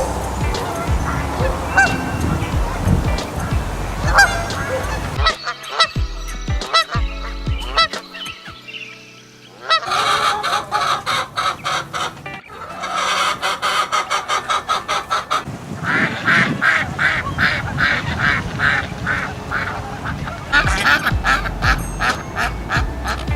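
A flock of domestic waterfowl calling in repeated nasal honks, heard as several short recordings cut together. The calls come sparsely at first, then from about ten seconds in as a fast, dense run of several honks a second.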